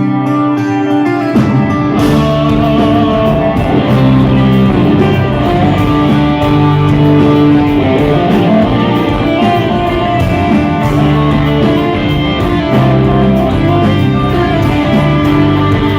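Instrumental rock music led by guitar. The full band, with bass and drums, comes in about two seconds in.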